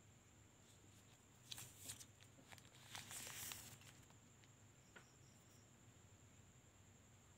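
Faint handling noise: a few soft taps and a brief rustle as a smartphone and its cardboard packaging are moved about on a cloth, over a faint steady high whine.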